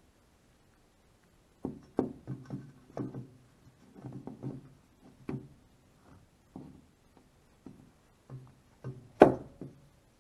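Steel lead screw being turned by hand through the nut blocks of a CNC's aluminium Y-axis rail: irregular metallic clunks, each with a short ringing tone, and one louder knock near the end.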